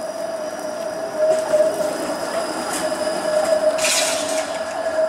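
Flexity Outlook streetcar rolling slowly round a tight loop curve, its wheels squealing on the rails in one steady, unbroken tone over the rumble of the car. A short hiss sounds about four seconds in.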